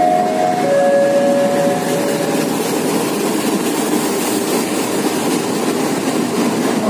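Diesel-hauled passenger train rolling past along the platform: a steady rumble and rattle of the locomotive and coaches on the rails. A few held tones sound over it in the first couple of seconds.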